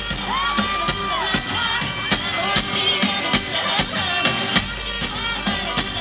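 Hip-hop pop track playing, with a steady drum beat and a held vocal line.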